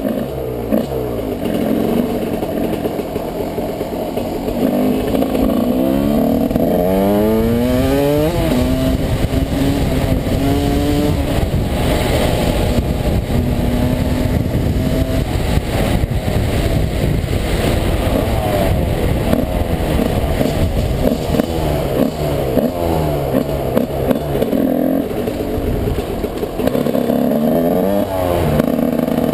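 Yamaha YZ125 two-stroke motocross engine running under way, heard from on the bike. Its pitch repeatedly sweeps up as it revs and drops back, several times over.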